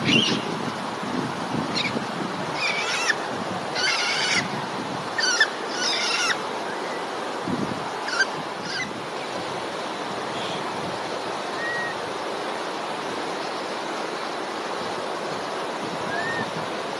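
Short, high-pitched animal calls, a cluster of them in the first nine seconds and a couple of faint chirps later, over a steady rushing noise.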